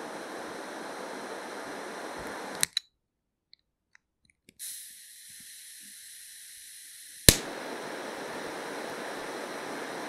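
Butane jet-flame lighter: the jet flame hisses steadily, then cuts out with two clicks about two and a half seconds in. After a short silence the gas hisses thinly without a flame. A sharp ignition click near the seven-second mark lights it, and the full flame hiss comes back.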